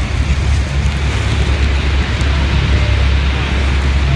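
Wind buffeting the microphone of a phone in a waterproof case as a steady, heavy low rumble, over the rushing roar of the waterfall and churning white water.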